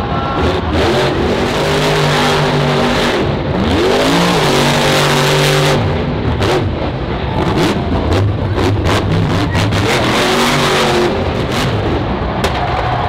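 Monster truck's supercharged V8 engine revving hard, its pitch repeatedly climbing and dropping with bursts of throttle as the truck runs and jumps the dirt ramps.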